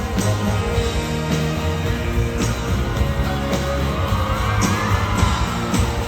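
Rock band playing live: drums, bass and guitars, with a steady beat of drum hits.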